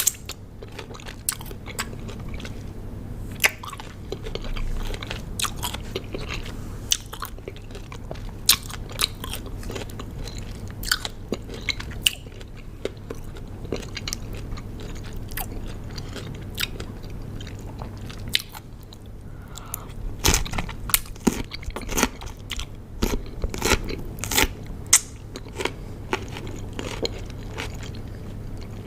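Close-miked biting and chewing of raw cucumber: irregular sharp, wet crunches, briefly sparser about two-thirds through, then dense again.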